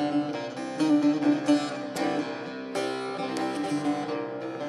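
Long-necked bağlama (saz) played with a plectrum: a quick run of plucked notes with the strings ringing on, and a steady note sounding underneath. It is the instrumental opening of a Turkish folk song.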